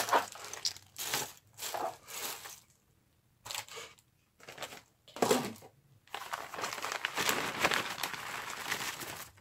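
Clear plastic bag crinkling as it is handled and opened, with short, irregular rustles in the first half and a long continuous stretch of crinkling in the second half.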